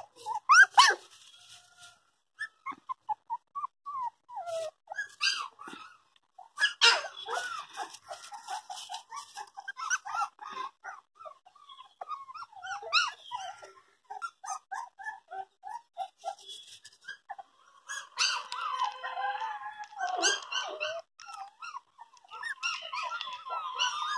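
Young puppies whining and yelping in a string of short, high-pitched calls, several at once at times, crowding together near the end.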